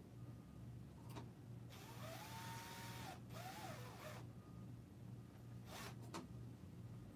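Cordless drill/driver run in two short trigger pulls, the motor whining up in pitch, holding, then winding down; the second pull is briefer. A few sharp clicks come before and after.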